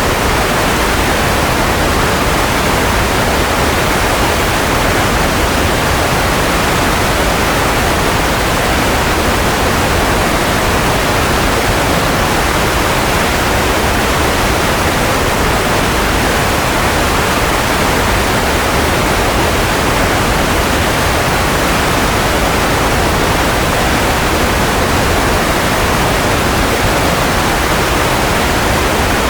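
Sleep-aid white noise: a steady, unbroken hiss that never changes in level.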